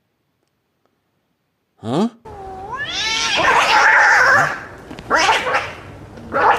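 Cat yowling and screeching in distress: after a brief silence, a short call about two seconds in, then a long rising yowl that breaks into a harsh screech, then two shorter screeches.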